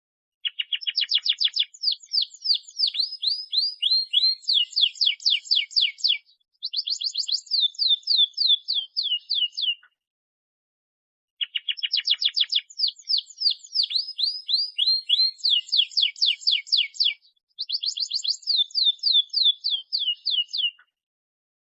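Domestic canary singing: long phrases of rapid, evenly repeated trill notes that shift from one note type to the next. Two near-identical phrases of about nine seconds each are separated by a silent gap of about a second and a half.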